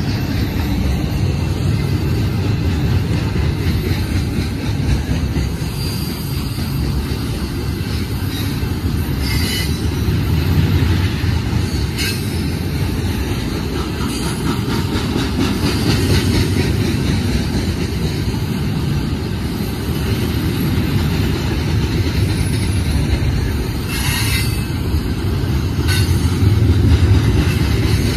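Double-stack intermodal freight cars rolling past: a steady low rumble of steel wheels on the rails, with a few brief high-pitched wheel squeals.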